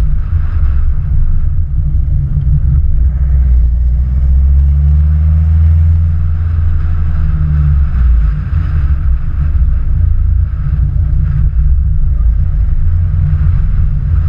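Engine of a motor vehicle running close by, with a heavy low rumble. Its pitch rises and falls with the throttle as it keeps pace with a racing cyclist.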